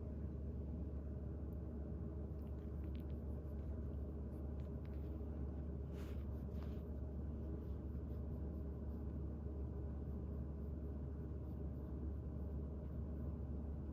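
Steady low hum of room tone, with a few faint soft clicks about six seconds in.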